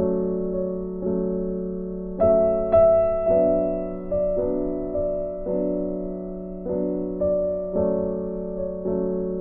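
Slow background piano music, a note or chord struck about once a second and left to fade.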